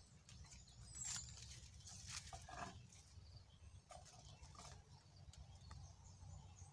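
Near silence, with faint scattered rustles and clicks and one brief high chirp about a second in.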